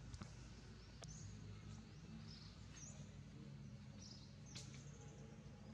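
Faint outdoor ambience: a few short, high chirps and occasional sharp clicks over a low steady hum.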